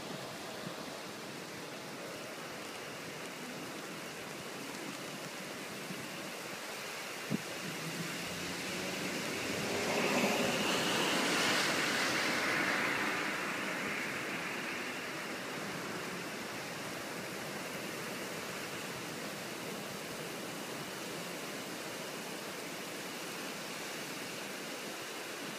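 Steady rush of heavy storm rain and wind, swelling louder about ten seconds in and easing back over several seconds. A single sharp click about seven seconds in.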